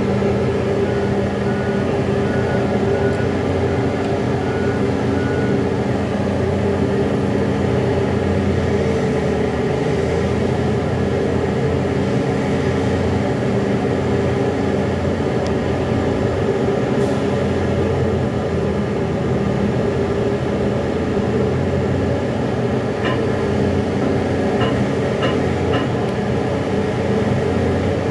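Heavy diesel engine of a Liebherr R 9250 mining excavator running steadily under working load as it loads a haul truck. A row of about seven short, evenly spaced beeps sounds in the first few seconds, and a few more short beeps come near the end.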